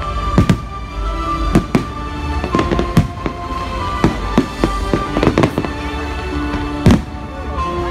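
Fireworks display: shells bursting with sharp bangs at irregular intervals, several a second at times, over music with sustained tones playing throughout.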